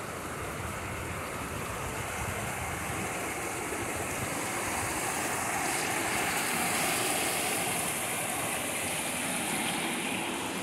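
Steady rushing water from a mountain stream or waterfall, a constant hiss that swells a little louder and brighter about six seconds in.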